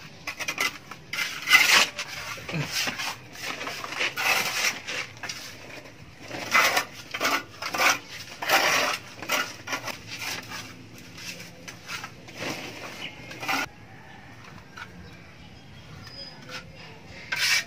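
Flat steel plastering trowel scraping over fresh neat-cement plaster on a wall in quick repeated strokes, smoothing the final finish coat. The strokes stop about 13 seconds in, and one short scrape comes near the end.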